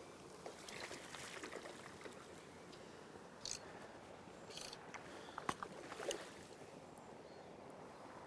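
Faint splashing from a hooked fish being played close to the bank, with a few short, sharp sounds between about three and a half and six seconds in.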